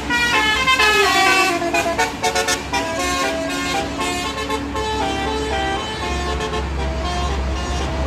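Bus telolet basuri musical air horn playing a tune of quickly stepping notes, stuttering rapidly about two seconds in, over a bus engine running.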